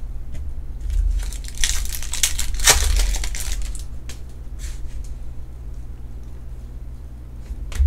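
Stiff chrome trading cards being handled and slid against one another as they are sorted, with a rustling, scraping stretch about one and a half to three seconds in and lighter scrapes after.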